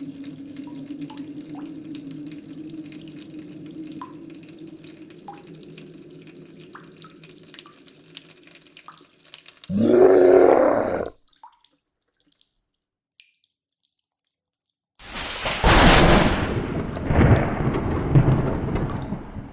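Sound-effect sequence: slow, faint drips over a steady low hum, then a short loud noise about ten seconds in. After a few seconds of silence, a long loud rumble swells twice near the end.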